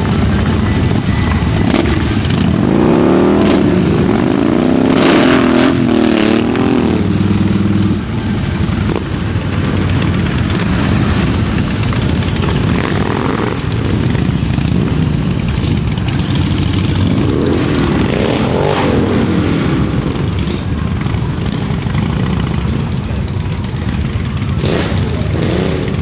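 A large group of Harley-Davidson motorcycles riding past, a steady rumble of V-twin engines, with bikes revving up and down about three to seven seconds in and again around eighteen seconds in.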